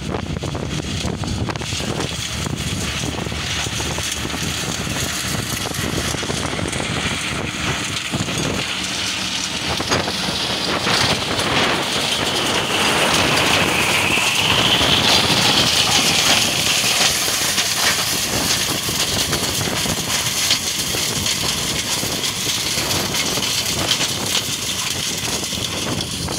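Maschio Tornado 310 flail mulcher, pulled by a tractor, shredding harvested maize stalks: a steady rushing din of the spinning rotor and chopped stalks over the tractor's engine. It grows louder about halfway through, where a high whine dips and rises again.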